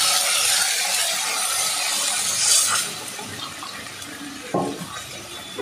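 Water poured into a hot steel kadai of sautéed chicken masala: a steady rushing pour that stops about three seconds in, leaving a quieter hiss from the pan.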